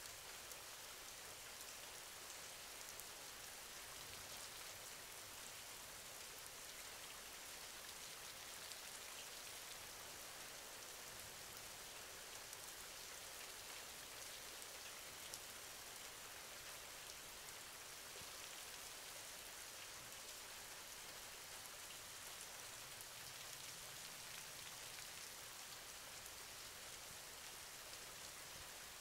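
Faint steady rain: a soft hiss of falling drops with light scattered crackles.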